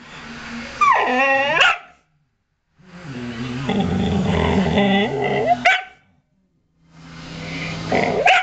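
Siberian husky growling and snarling in three bouts with wavering, rising yowls, each bout ending in a short sharp bark: a dog guarding its food bowl.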